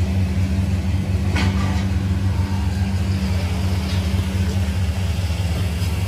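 A vehicle engine idling steadily as a low, even hum, with one short crackle about a second and a half in.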